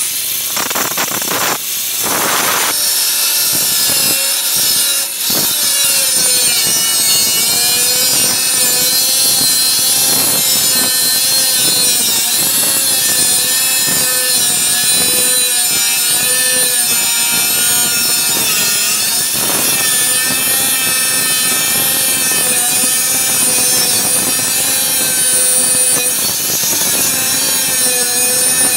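Harbor Freight Bauer 4.5-inch, 8-amp, 11,000 RPM angle grinder with an abrasive wheel cutting and grinding into thick steel, roughly 5/16 inch. The motor and wheel make a continuous high whine whose pitch wavers as the wheel bites into the metal.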